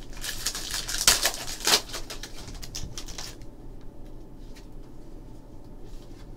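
Foil trading-card pack wrapper being crinkled and torn open, a loud crackly rustle for about three seconds with the sharpest crackles near the middle, then a much quieter rustle of the cards being handled.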